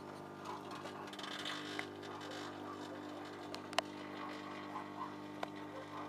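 Hinari microwave oven running with a steady electrical hum while a circuit board burns inside it after its capacitors vented, with a few sharp crackles from the cavity, the loudest about halfway through.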